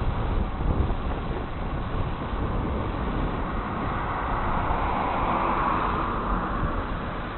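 Wind buffeting the microphone with a low gusty rumble, and a broad rushing noise that swells about halfway through and then fades.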